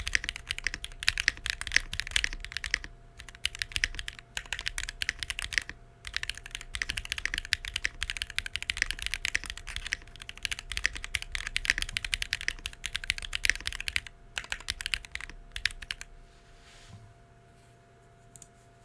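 Fast typing on a Womier RD75 mechanical keyboard built with Weikav Rouge Axis switches, a carbon-fibre plate, half gaskets, plate foam only and Weikav keycaps. Rapid runs of keystrokes with short pauses, stopping about sixteen seconds in.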